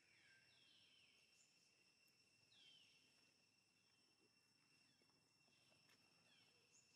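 Faint outdoor ambience: a steady high-pitched insect drone, with short, quickly falling bird calls repeating every second or so.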